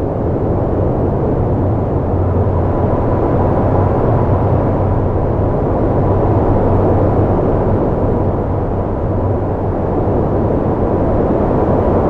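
Strong storm wind blowing steadily: a dense rushing noise over a deep low rumble, swelling slightly now and then.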